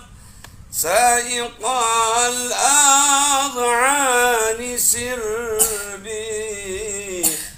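A man singing an Arabic devotional song solo and unaccompanied, in long melismatic phrases with wavering ornaments. After a brief pause, the phrase opens about a second in with a rising glide.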